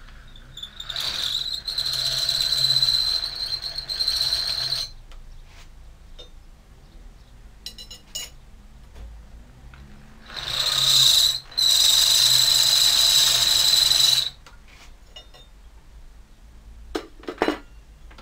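Handheld electric drill boring into a steel bar, run twice for about four seconds each with a steady high whine as the bit cuts the metal. Near the end come two short knocks.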